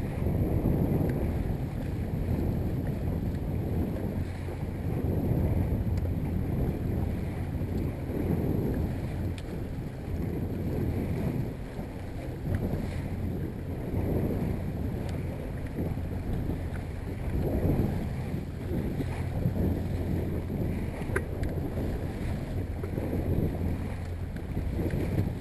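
Yamaha 70 hp outboard motor running steadily at trolling speed, about 1,200 RPM, a constant low hum, with wind buffeting the microphone and the wash of choppy water swelling and fading.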